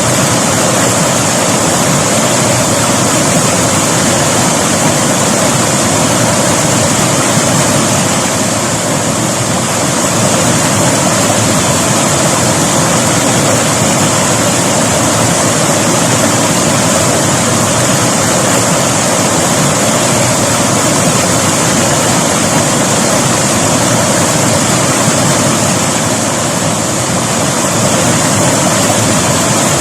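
River water rushing and splashing over rocks in a loud, steady, even rush, easing slightly twice for a moment.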